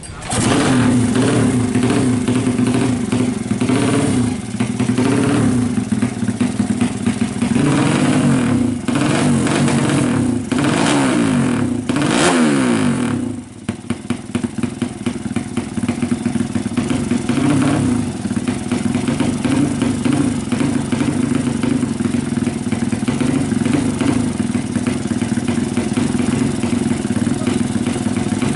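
Tuned 200cc motorcycle engine running, revved several times in quick rising-and-falling blips about a third of the way in, then the throttle snaps shut and it settles to a steady idle.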